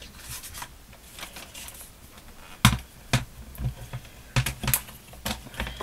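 Plastic paper trimmer being handled and set down on a cutting mat, with paper moved about: a scatter of sharp clicks and knocks that starts about two and a half seconds in.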